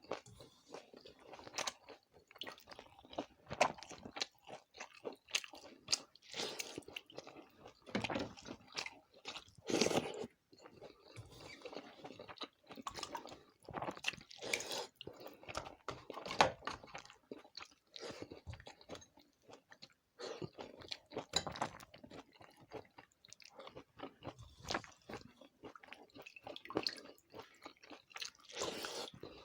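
A person eating close to the microphone: irregular crunching bites and chewing, some louder than others.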